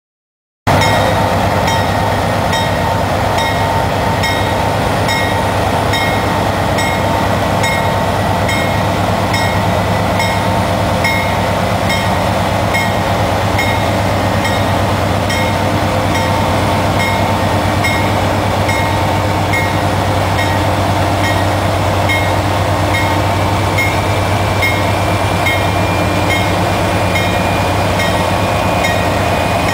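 CSX diesel locomotive hauling a coal train, its engine running with a steady low hum, while a bell rings about once every three-quarters of a second. The sound starts suddenly about half a second in, and a thin squeal from the wheels creeps in over the last several seconds.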